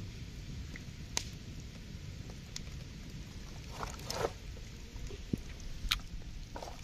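Hands tearing meat off a whole roasted chicken on a palm leaf: quiet wet squishing, with a few sharp crackles of the leaf being handled.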